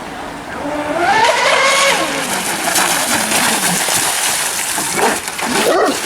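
Twin Leopard 4074 brushless electric motors of an RC racing boat whining up in pitch as the boat accelerates, over the hiss of the hull and spray on the water.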